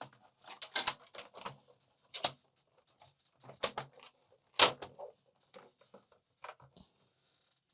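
Irregular clicks and knocks of the Amiga 500's plastic case and parts being handled and fitted together, with one sharper knock about four and a half seconds in.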